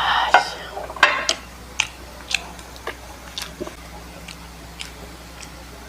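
Close-miked eating: two loud crunching bites in the first second and a half, then chewing with scattered sharp clicks.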